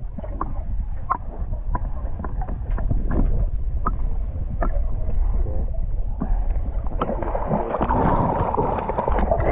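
River water gurgling and splashing close to the microphone beside a small boat, over a steady low rumble, with scattered small splashes and clicks; the splashing grows denser from about seven seconds in.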